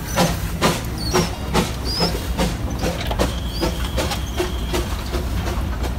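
Darjeeling Himalayan Railway B-class 0-4-0 saddle-tank steam locomotive working slowly past at close range: steady exhaust chuffs about two a second over a low rumble and a hiss of steam, with a few faint brief squeals.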